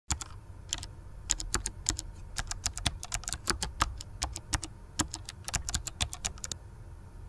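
Fingers typing on a computer keyboard: a quick, irregular run of key clicks that stops about six and a half seconds in.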